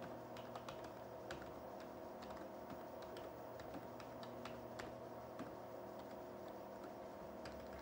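Typing on a slim USB membrane keyboard: a fast, irregular run of soft key clicks. A steady hum from the running TRS-80 Model II lies underneath.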